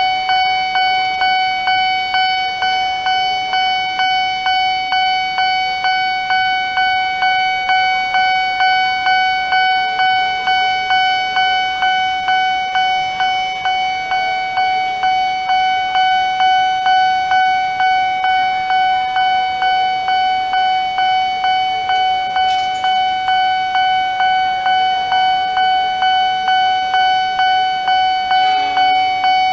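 Nippon Signal railway crossing alarm ringing steadily, a pitched electronic ding repeating about twice a second, the warning that a train is approaching.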